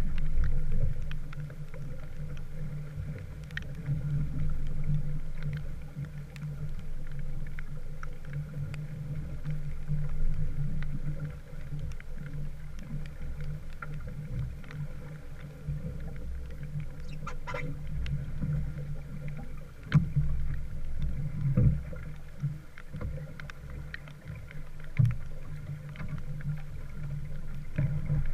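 Small wooden sailboat under way: a steady low rush of water and wind that swells and fades, with a few light knocks about two-thirds of the way through.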